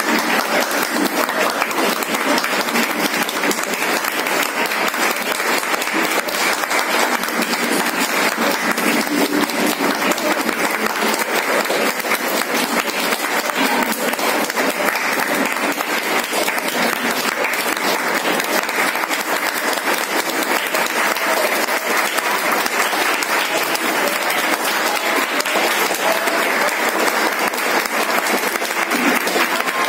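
Audience applauding steadily and continuously, many hands clapping without a break.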